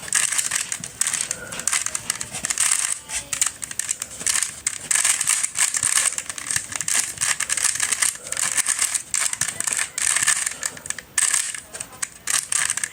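A 3x3 puzzle cube turned rapidly by hand during a solve: an unbroken, fast run of plastic clicks and clacks as its layers snap round.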